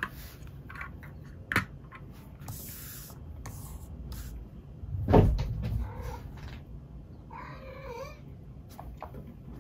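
CADA building bricks being handled and clicked together, with sharp clicks and a heavier thump about five seconds in. Near the end comes a short wavering call, much like a cat's meow.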